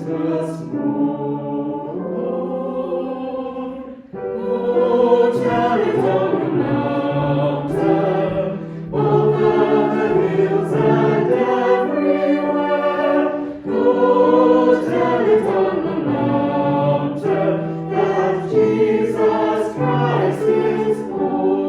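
Choir singing a sacred piece in several voices, in long held phrases with short breaths between them.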